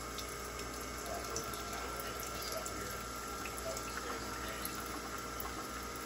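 Keurig single-serve coffee maker brewing: a thin stream of coffee pouring steadily into a ceramic mug over the hum of the machine's water pump, with a steady high tone.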